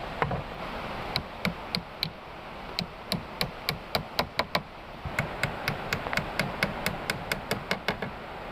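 A quick run of sharp knocking strikes, about two to three a second, with a short break about five seconds in.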